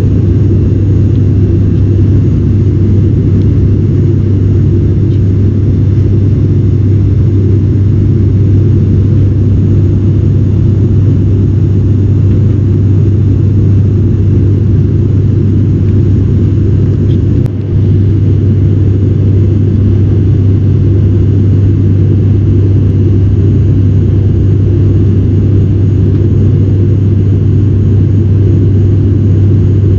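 Steady cabin drone of an ATR turboprop airliner in flight, the low hum of its propellers and engines heard from a window seat, with one brief dip just past the middle.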